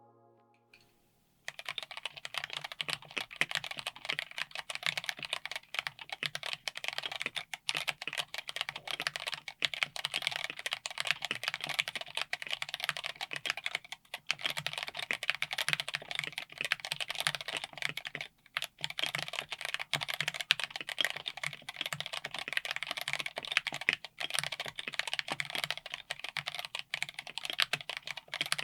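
Continuous fast typing on a mechanical keyboard with TTC x Pantheonkeys PT Black linear switches, mounted on an FR4 plate in an aluminum Tofu60 case. It starts about a second and a half in and has two brief pauses.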